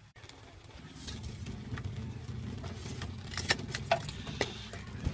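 Metal tongs clinking and scraping against lumps of charcoal in a clay charcoal stove, a scatter of sharp clicks that grow louder in the second half, over a steady low rumble.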